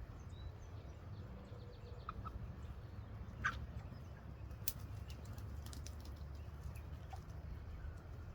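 Meat chickens and ducks moving about in their run: a couple of faint peeps about two seconds in, one short call about three and a half seconds in, and scattered soft clicks and rustles over a low steady rumble.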